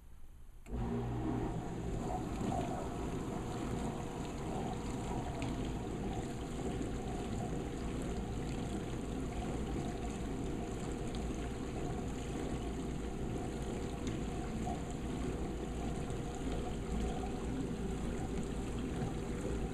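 Dishwasher starting its wash: water spraying and sloshing inside the tub with the circulation pump humming, coming on suddenly just under a second in and then running steadily.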